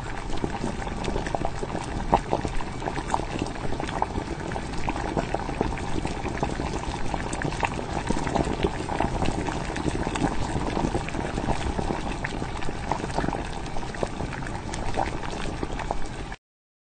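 Cooking liquid bubbling at a boil, a steady hiss with many small pops, cutting off suddenly near the end.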